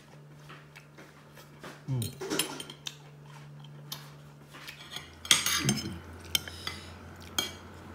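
A metal fork and spoon clinking and scraping against a ceramic dinner plate while food is picked up and eaten, in scattered strokes. The loudest clinks come around five seconds in.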